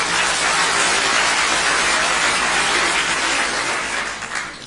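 Loud, dense noise of a large crowd, swelling in about the first second, holding steady, then dropping off sharply near the end.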